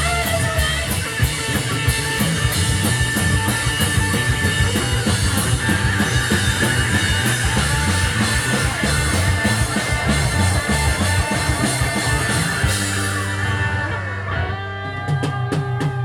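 Live psychedelic space-rock band, with electric guitars, bass and drums, playing an instrumental passage. About thirteen seconds in it thins to held bass and guitar notes under a run of sharp drum hits as the song ends.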